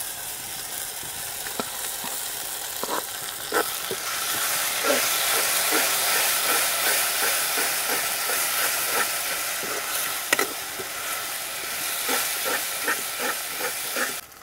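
Mustard-paste masala and onions sizzling in hot oil in an aluminium kadai, with a steel spatula scraping and stirring in quick repeated strokes. The sizzle grows louder a few seconds in and cuts off suddenly at the end.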